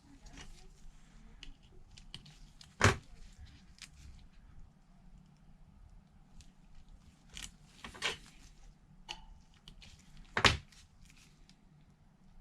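Small handling noises of adhesive tape being peeled and pressed onto a phone's frame: faint scratching and rustling, with two sharp clicks about three seconds in and near the end, and a lighter one just after eight seconds.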